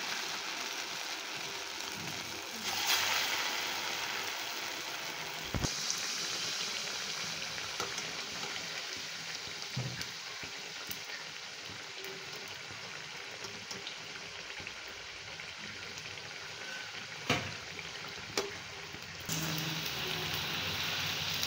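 Rice-flour pathiri deep-frying in hot oil in a steel pan: a steady sizzle of bubbling oil that swells at times. A sharp click comes about six seconds in, and two more near the end.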